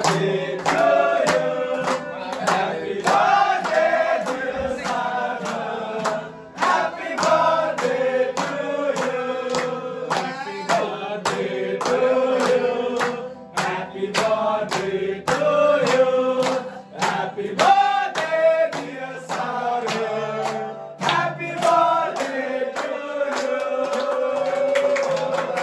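A group of men singing a birthday song together while clapping in time, about two claps a second.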